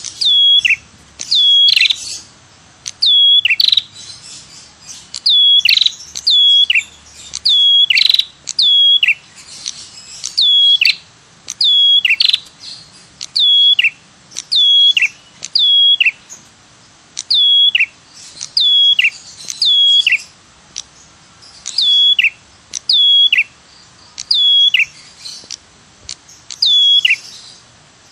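Red-headed prenjak (prenjak kepala merah) calling 'tirr tiirr': short, sharp notes that sweep down in pitch, mostly in pairs and repeated every second or two. It is a looped recording of the call used as a bird-trapping lure.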